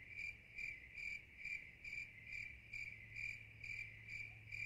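A cricket chirping in an even rhythm, about two and a half chirps a second, all at one pitch, with a faint low hum underneath.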